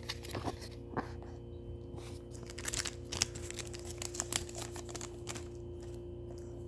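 Pokémon trading cards and their foil booster-pack wrapper being handled: a scattered run of light clicks and crinkles as the cards are slid apart and flipped, over a faint steady hum.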